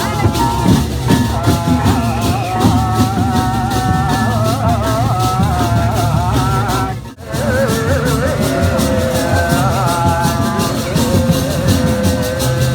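Music with a rapid, even beat of metallic strikes under wavering, bending melody lines; it drops out briefly about seven seconds in.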